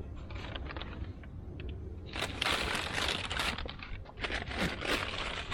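Crinkling and rustling of items being handled, quiet at first, then louder and denser from about two seconds in.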